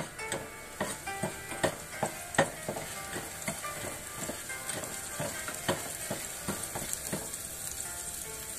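Food sizzling in oil in a non-stick frying pan while a spatula stirs it, scraping and tapping against the pan in quick irregular clicks, most of them in the first few seconds.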